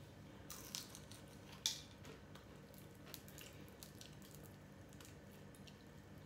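Crispy fried shrimp crunching as it is eaten and pulled apart by hand: a few sharp crunches in the first two seconds, the loudest just under two seconds in, then faint crackles.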